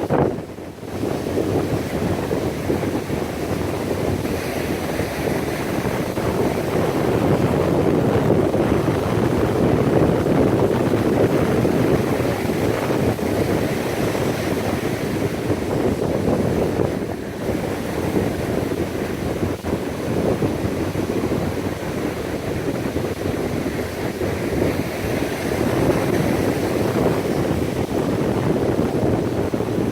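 Wind buffeting the microphone over the steady rush of surf on a beach.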